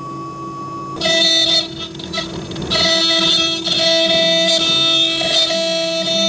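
A CNC router spindle carving wood with a tapered ball-nose bit, running with a steady whine. About a second in, loud plucked guitar music comes in over it.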